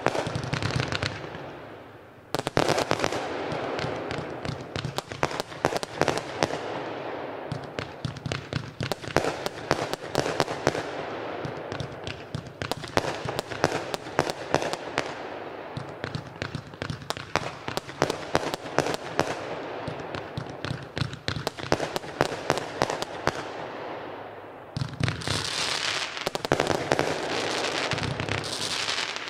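Consumer firework batteries (cakes) firing in quick succession: a dense run of sharp pops, bangs and crackles from aerial bursts. The firing drops off briefly about two seconds in and again near the end before the next run of shots starts.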